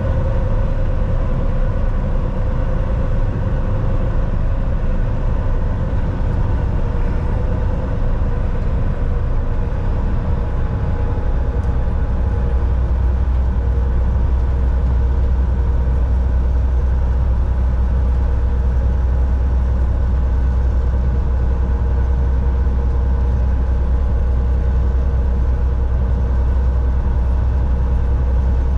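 Volvo VNL 760 semi truck under way: a steady engine drone with road noise, the low rumble growing stronger about eleven seconds in.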